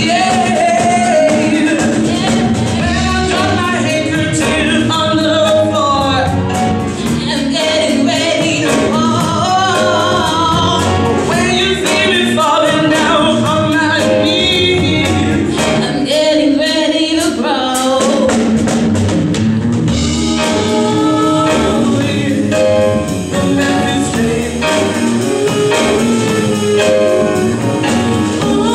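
Live band music: two women singing into microphones over electric guitars, with a steady beat.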